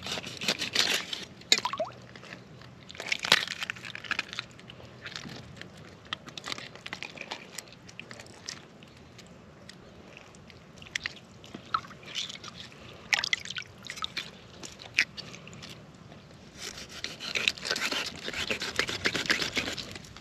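Water sloshing and dripping with irregular clicks, crunches and scrapes, as freshly caught bluegill are cleaned. The handling gets busier again near the end.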